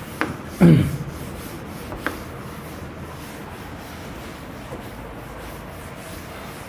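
Whiteboard duster rubbing across a whiteboard in steady wiping strokes, erasing the writing. A short vocal sound comes about half a second in, and there are a couple of light clicks in the first two seconds.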